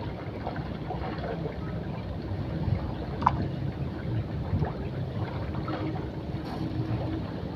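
Outdoor ambience by open water: low wind rumble on the microphone and soft water lapping, with a faint steady hum and a single light click about three seconds in.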